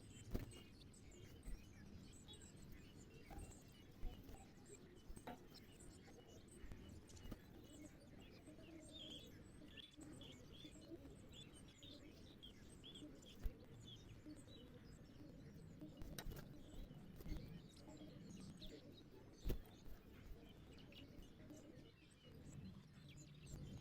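Faint chirping of small birds, many short chirps over a low background rumble, with a few sharp clicks.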